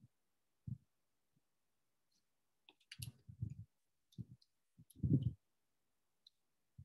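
Faint scattered clicks and soft low thumps, a handful of brief ones with quiet gaps between, the loudest about five seconds in.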